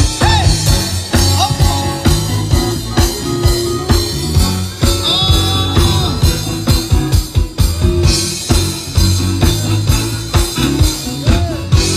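Loud upbeat music with a steady drum beat and heavy bass, played through outdoor stage PA speakers.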